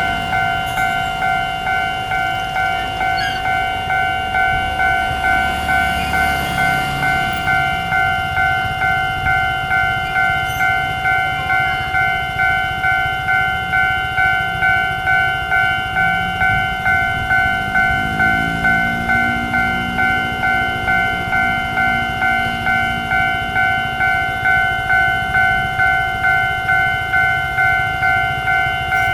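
Level crossing warning bell ringing in an even, repeating ding just under twice a second. In the second half, a low engine drone rises in pitch and holds underneath.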